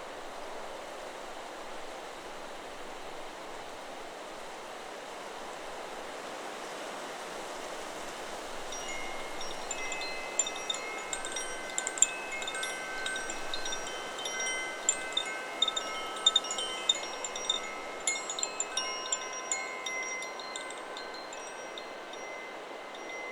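Steady wind in the trees. About nine seconds in, the Chakra Chimes 'Solar Plexus' wind chime starts ringing, its tubes struck again and again at several different pitches, and the ringing dies away near the end.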